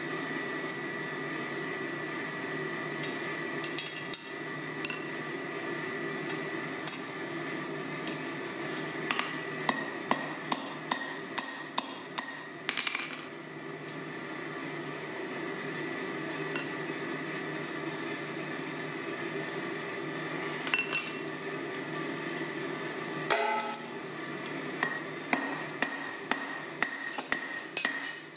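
Hand hammer striking a red-hot machined flat-head rivet on the anvil, setting it to tighten a forged steel joint: scattered blows, then runs of quick ringing strikes, the last run about two a second near the end. Under it runs the steady hum of the forge's electric blower.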